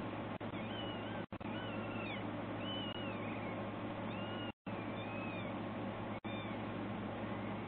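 A kitten mewing: a string of about half a dozen thin, high mews, each sliding up and then down in pitch.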